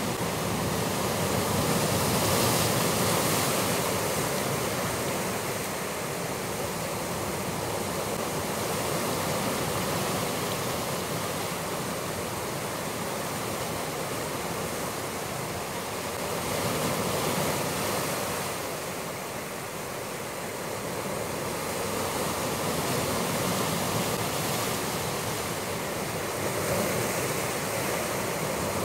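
Ocean surf breaking and washing against a rocky shore: a steady rushing wash that swells and eases every several seconds.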